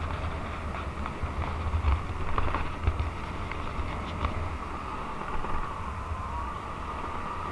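Wind buffeting the microphone of a helmet-mounted camera on a moving 125 cc scooter, with the scooter's engine running underneath. A few short knocks come between about two and four seconds in.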